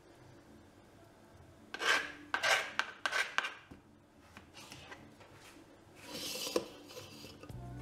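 A kitchen knife scoring soft ripe papaya flesh down to a plastic cutting board: a run of short scraping strokes about two seconds in, a few more later, and a longer scrape near the end.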